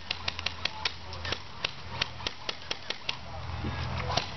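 Airsoft firefight: irregular sharp snaps, several a second, from airsoft rifles firing and BBs striking wooden walls.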